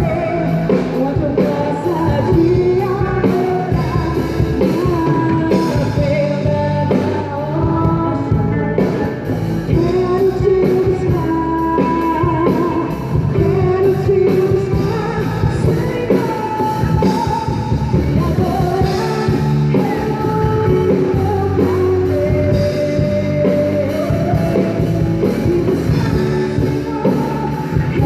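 Live band playing a rock-style worship song: a sung melody over guitar, bass and drums, steady throughout.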